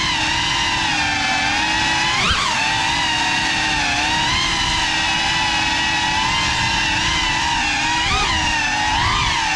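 A GEPRC Cinelog 35 cinewhoop FPV drone on a 6S battery in flight: a steady high whine from its motors and ducted propellers, heard from the camera riding on the drone. The pitch jumps up briefly about two seconds in and twice more near the end as the throttle is punched.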